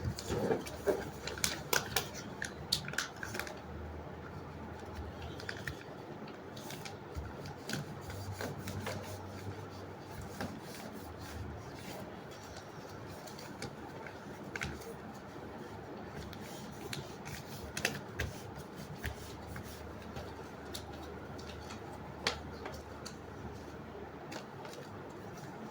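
Sheet of paper being folded and creased by hand, with crinkling and sharp paper clicks that are busiest in the first few seconds and scattered after, over a low steady hum.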